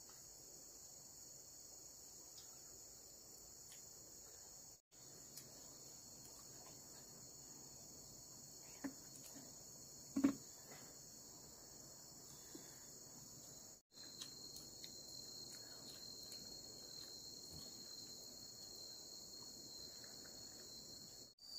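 A steady chorus of crickets and other insects trilling high and unbroken, with a couple of faint knocks about halfway through. The sound drops out briefly twice, and after the second break one clear, high trill stands out above the rest.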